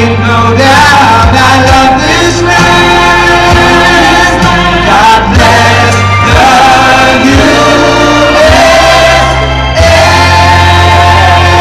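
Loud music with singing over a sustained deep bass, played through a sound system for a laser show. It dips briefly a little before the end, then carries on.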